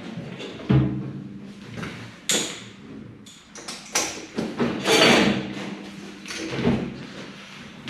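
Scattered knocks, thuds and clanks of milking pipeline parts being handled, with a few short rushing noises.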